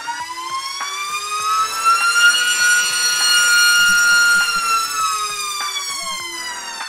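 iFlight XING2 2207 2755KV brushless motor spinning a Gemfan Hurricane 51477 three-blade 5.1-inch prop on a thrust stand on 4S, a loud whine during a throttle ramp. The pitch rises as throttle climbs to full and holds for about two seconds at full throttle, around 28,000 RPM and 1.5 kg of thrust. It then falls as throttle ramps back down.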